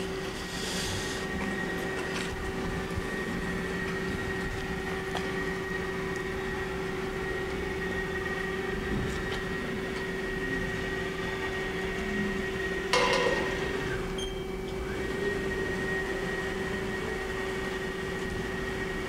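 Haas SL-40 CNC lathe's turret slide moving under power as its axes are jogged: a steady machine hum with a high whine over it. About thirteen seconds in comes a short, louder burst of noise, and the whine drops out for a second or so before returning.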